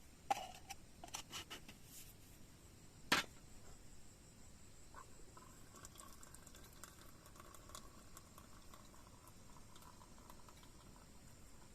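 Light clicks and knocks of camp gear being handled, with one sharper knock about three seconds in, followed by a faint steady high hum.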